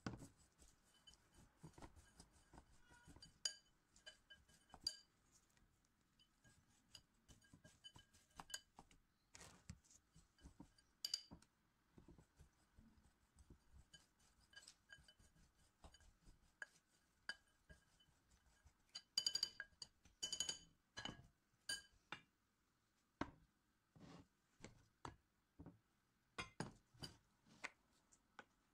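Metal spoon clinking and tapping against mixing bowls while ingredients are stirred and scooped. The taps are light and irregular, each with a short ring, and come thickest and loudest about two-thirds of the way through.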